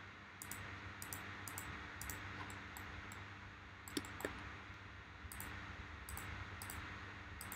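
Scattered light clicks of a computer mouse, with a sharper pair about four seconds in, over a faint steady hum.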